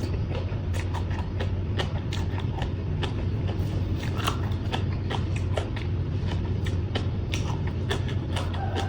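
A person chewing and biting into papaya salad with fresh vegetables, close to the microphone: irregular wet clicks and crunches every fraction of a second. A steady low hum runs underneath.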